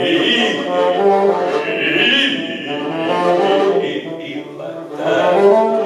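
Live early-music trio playing a slow melody of held notes.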